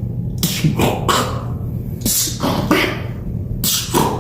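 Vocal beatboxing: sharp, hissy, snare-like mouth sounds in quick groups of about three.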